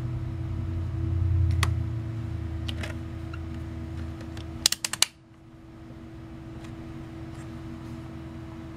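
A quick run of sharp clicks from a 121GW multimeter's rotary selector switch being turned off and back on, about five seconds in, with a few lighter clicks before it. A steady low hum runs underneath and drops after the clicks.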